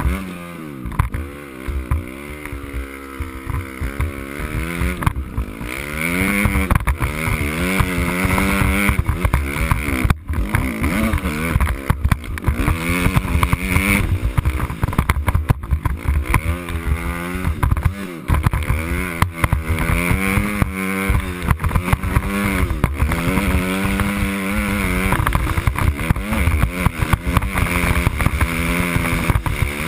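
Dirt bike engine revving as it rides, its pitch rising and falling again and again as the throttle is worked. There is a brief dip about ten seconds in.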